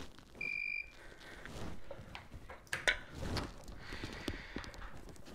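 A single short, high electronic beep from an electrical test meter about half a second in, followed by scattered clicks and rattles of test probes and leads being handled at a ceiling lamp holder.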